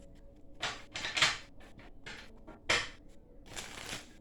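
A deck of cards being handled and shuffled, in three short bursts of rustling, slapping cards.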